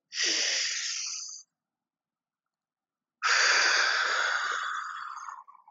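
A man breathing audibly through the effort of a held exercise pose: two long breaths, the second longer and trailing off near the end.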